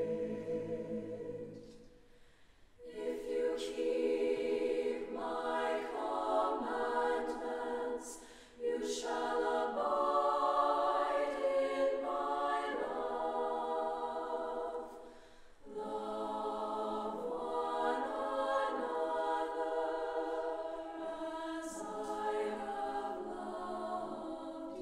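Mixed choir of men's and women's voices singing a slow piece in sustained phrases, with short breaks between phrases about 2, 8 and 15 seconds in. The voices ring in a reverberant stone church.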